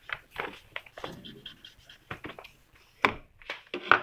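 Whiteboard marker writing on a whiteboard: a run of short, irregular scratchy strokes as a word is written, the loudest about three seconds in and near the end.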